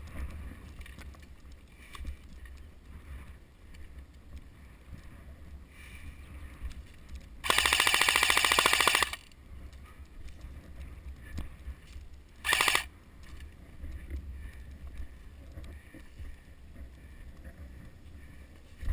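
Airsoft replica firing on full auto: a rapid rattling burst of about a second and a half, then a short burst a few seconds later. Between the bursts there is a steady low wind rumble on the microphone.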